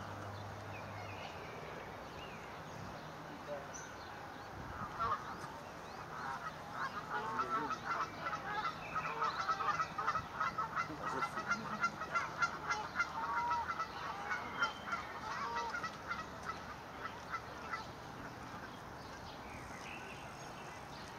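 Swans calling: a fast run of many short calls, starting about five seconds in and lasting about twelve seconds before fading.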